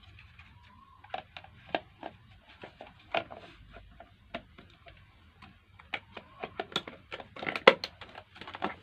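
Irregular plastic clicks and taps as a cable tie is pulled tight over a blender's safety lock switch and the blender's plastic parts are handled, with a quick run of clicks near the end.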